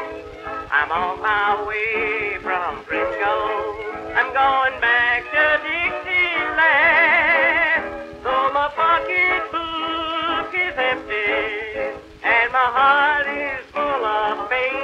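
Edison Blue Amberol cylinder record playing on an Edison cylinder phonograph: a 1920s country song in a stretch without lyrics, a melody line wavering with heavy vibrato over the accompaniment, with the thin sound of an old acoustic recording that has nothing in the upper treble.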